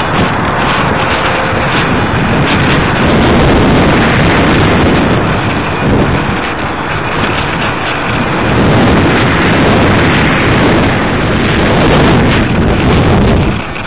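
Loud, steady wind rush over the microphone of an onboard camera riding on a ParkZone Radian RC glider in flight, easing a little about halfway through and dipping briefly near the end.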